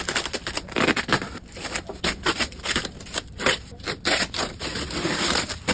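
Unpacking a nailed plywood shipping crate: irregular scraping, rustling and knocking of wood and packing material, with a steady run of sharp clicks.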